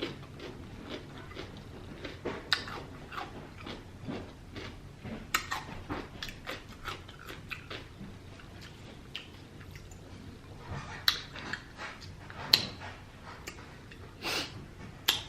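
Close-up mouth sounds of someone eating lobster tail: chewing, with scattered wet clicks and lip smacks and a few sharper smacks.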